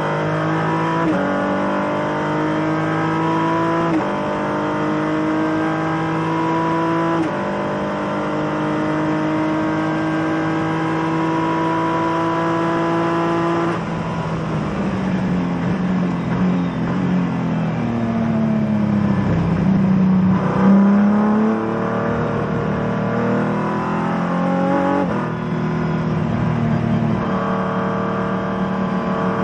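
Race car engine heard from inside the cockpit, pitch climbing through the gears with a drop at each upshift. About halfway in it slows with downshifts as the car brakes into a corner, then it pulls up through the gears again.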